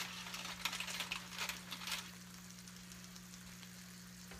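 Rapid light crackling and clicking for about two seconds as a baked pork chop is lifted from its pan onto a plate, then only a steady low hum.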